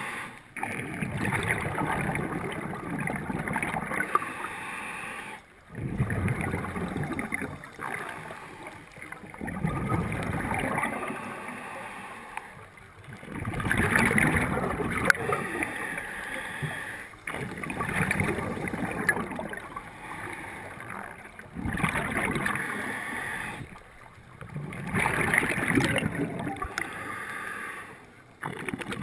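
Scuba diver breathing through a regulator, heard underwater: long gurgling rushes of exhaled bubbles in a slow cycle, with short pauses between breaths roughly every four seconds.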